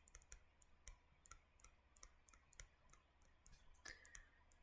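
Near silence broken by faint, irregular clicks of a stylus writing on a tablet screen, scattered through and bunching up near the end.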